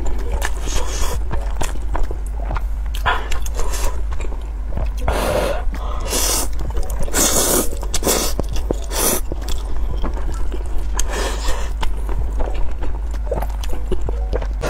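A person slurping and chewing spicy instant noodles in broth. Loud slurps come every second or two, with chewing between them.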